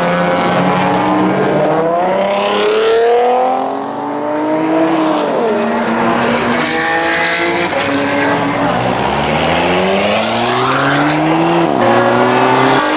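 Performance car engine running hard on a racetrack. Its note climbs under acceleration and drops abruptly at gear changes.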